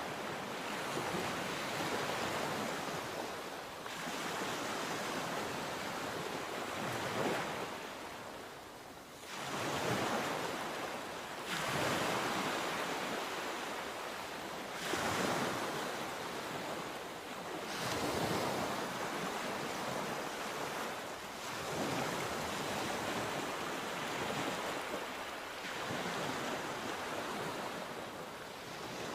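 Sea waves breaking and washing on the shore, the surf swelling and falling away every three to four seconds, with some wind on the microphone.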